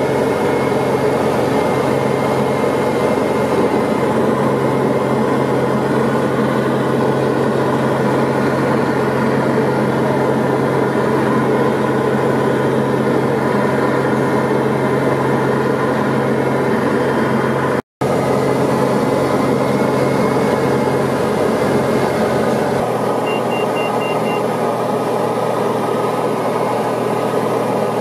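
Diamond DA40 single-engine light aircraft's engine and propeller at high takeoff and climb power, heard from inside the cabin as a loud, steady drone. The sound cuts out for an instant about two-thirds of the way through, and the low tone changes a little later; a short run of faint beeps follows.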